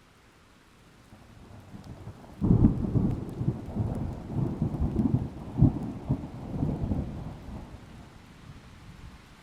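A thunderclap. A low rumble builds from about a second in, and a sudden loud crack comes about two and a half seconds in. Rolling rumbles with several loud peaks follow, then die away over the last couple of seconds.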